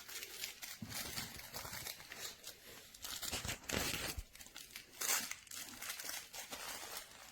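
Crinkle material inside a plush dog toy crackling and rustling in irregular bursts as it is squeezed.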